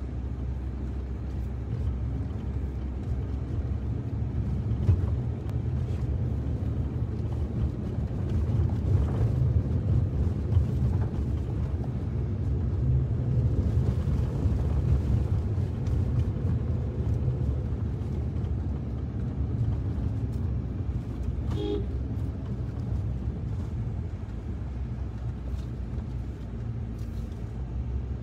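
Car driving up a hill, heard from inside the cabin: a steady low engine and road rumble. A short car-horn toot sounds once, about two-thirds of the way through.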